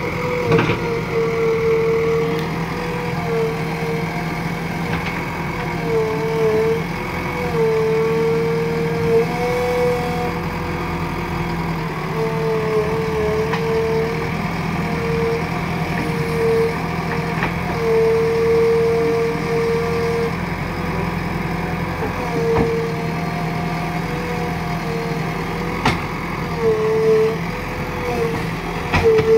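JCB 3DX backhoe loader's diesel engine running steadily while the loader works wet mud, with a whine that cuts in and out over and over and a few sharp knocks.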